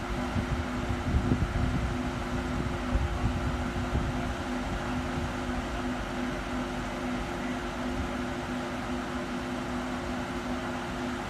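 Steady mechanical hum holding two low tones, the lower one cutting in and out. Wind buffets the microphone in the first couple of seconds.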